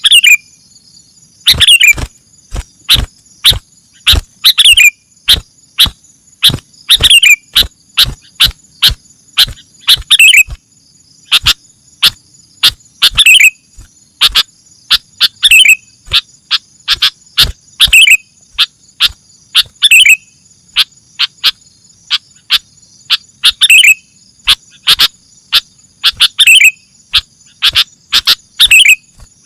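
Sooty-headed bulbul (kutilang) song played loud as a training recording: rapid sharp chirps with a falling whistled note about every two seconds, over a steady high insect drone like crickets.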